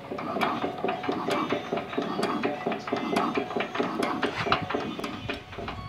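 Small single-cylinder diesel engine of a tubewell pump running just after being started, with a rapid, uneven knocking.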